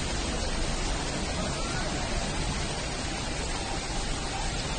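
Heavy rain pouring down on a hail-covered street, a steady even hiss.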